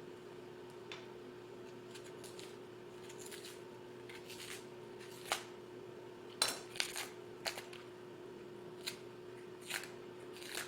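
Green plantain being peeled: its stiff skin pried and torn off in short, irregular clicks and scrapes, over a steady faint hum.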